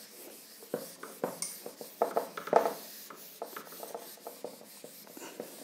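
Handheld whiteboard eraser wiping marker off a whiteboard: a run of irregular rubbing strokes, the strongest a little over two seconds in.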